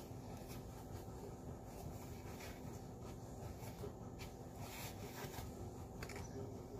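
A few faint, short rustles as a crumpled wad of white wrapping is handled, over a steady low room hum.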